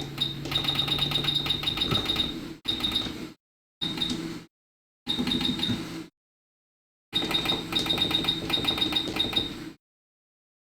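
Hot air rework station blowing during chip reflow: a steady airflow noise with a rapid, even ticking. It cuts out and back in several times, with the longest stretches about 2.5 s.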